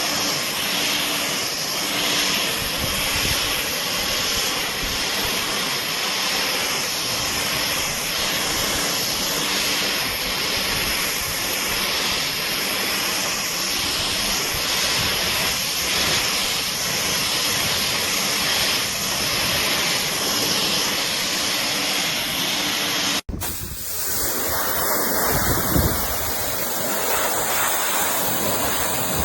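An electric pressure washer running and spraying, a steady jet hiss over the hum of its motor and pump. About 23 seconds in the sound breaks off abruptly and resumes with a different spray noise.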